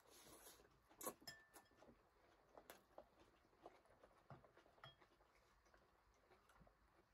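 Faint mealtime sounds: a brief paper-napkin rustle at the start, then scattered light clicks of a fork and chopsticks against bowls, the sharpest about a second in.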